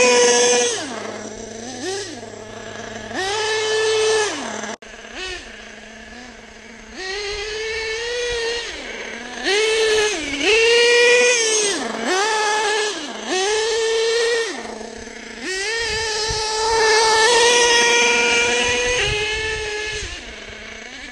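Nitro RC truck's small two-stroke glow engine driven in repeated throttle bursts. The pitch climbs to a high whine, holds briefly and drops back toward idle between bursts, with a longer full-throttle run near the end.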